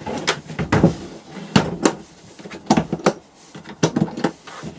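Hard plastic clicks and knocks from a DeWalt TStak 2.0 tool box being handled, its latches and lid snapping and bumping, in about four quick pairs a second or so apart.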